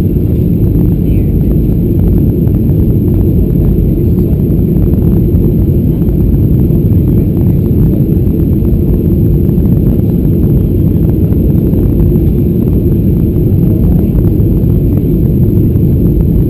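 Boeing 737-800 cabin noise on final approach: the engines and the rush of air past the fuselage make a loud, steady low rumble with no change.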